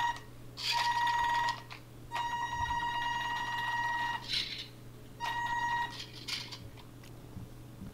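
Electric drive motor of a home-built RC car whining at a steady high pitch in four bursts as low throttle is applied and released, the longest about two seconds. Short scuffing noises come in between.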